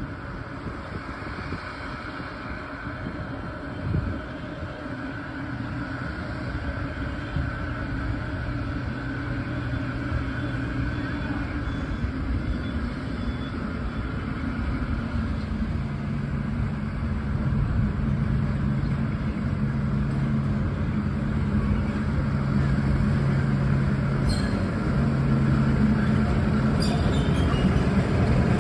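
Narrow-gauge diesel locomotive hauling a sugar-cane train, its engine hum growing steadily louder as it approaches. A few sharp clicks from the wheels on the rails come near the end.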